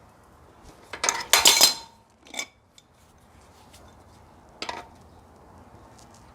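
Metal clinking of a spanner on a bicycle wheel's axle nut as it is tightened: a loud jangling rattle of clinks about a second in, then two single clinks later.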